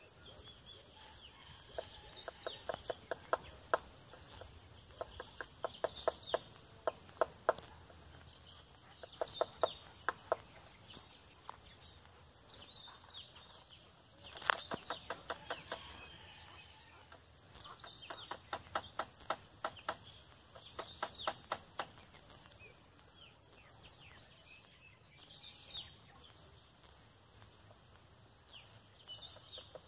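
Woodpecker hammering with its bill in bursts of rapid knocks, a dozen or so strokes each, repeating every few seconds. Other birds call faintly and an insect ticks steadily in the background.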